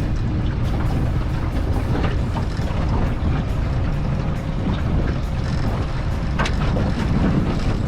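Small boat's outboard motor running steadily at trolling speed into a strong wind, with wind buffeting the microphone and a few short knocks.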